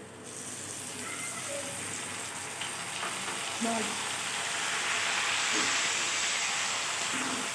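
Chopped tomatoes hitting hot oil with browning onions in a kadhai and sizzling as a steel ladle stirs them in. The sizzle starts as they go in and swells over the next few seconds.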